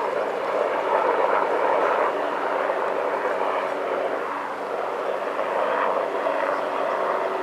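A radio-controlled model airplane's engine running steadily, swelling and fading a little in loudness.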